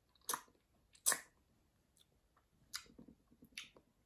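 Lip smacks and mouth clicks of someone tasting a sip of beer, about four short smacks a second or so apart.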